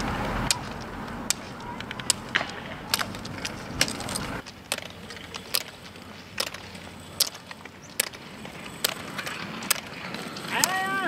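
Roller-ski pole tips striking the asphalt in sharp clicks, one every half second to a second, over the rolling hum of roller-ski wheels on tarmac.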